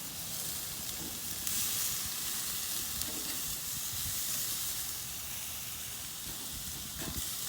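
Steaks sizzling on a charcoal grill: a steady hiss.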